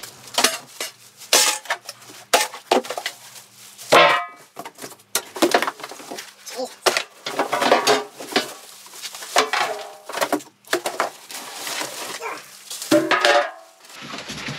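Loose metal parts of a bandsaw stand clinking and clattering as they are handled and lifted out of a cardboard box, with cardboard and plastic wrapping rustling among the knocks.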